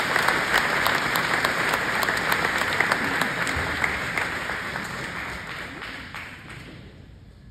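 Audience applauding, a dense crowd of hand claps that holds steady and then dies away over the last few seconds.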